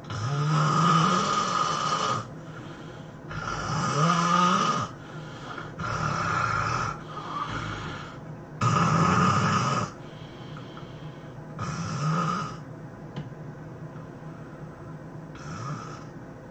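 A sleeping person snoring loudly: five heavy snores of one to two seconds each, a few seconds apart, then a fainter one near the end.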